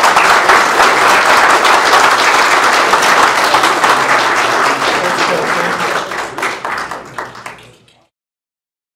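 Audience applauding, a dense patter of many hands clapping that tapers off and fades out about eight seconds in.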